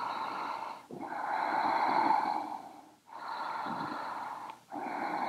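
A person breathing slowly and deeply in and out, about four airy breaths of a second to a second and a half each, with short pauses between them: deliberate deep breathing held during a yoga stretch.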